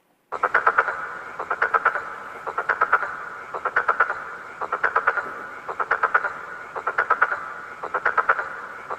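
A frog croaking: a short rattling call of quick pulses, repeated evenly about once a second, starting suddenly a moment in.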